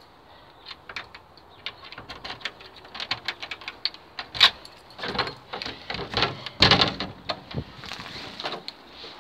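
A bunch of keys clinking and clicking, then a front door being unlocked and pushed open, with a run of knocks and bumps; the loudest bangs come around the middle.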